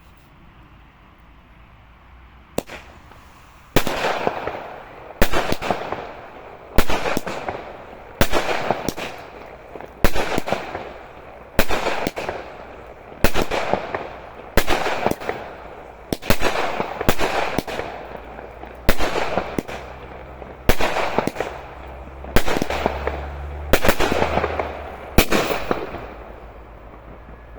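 Ark-O "Ultras" category F2 firework battery firing: a sharp bang about every second and a half, each followed by a fading crackling tail, for around fifteen shots.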